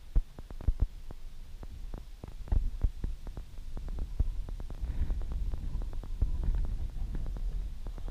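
Wind buffeting the microphone: a low rumble with frequent sharp pops, growing stronger from about two and a half seconds in.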